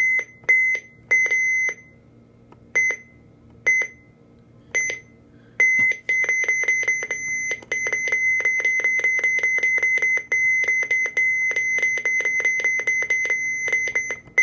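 Midland 74-200 weather radio giving single-pitched key beeps as its buttons are pressed to set the alarm time. A few separate beeps come first, then from about six seconds in a fast, nearly unbroken run of beeps while the time is stepped forward.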